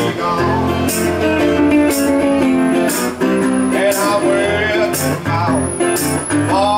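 Blues played on a metal-bodied resonator guitar, plucked and strummed, with a man singing over it and a beat about once a second.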